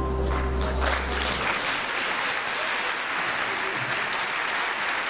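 The final held chord of the live folk ensemble fades in the first second or so. Audience applause then runs on steadily.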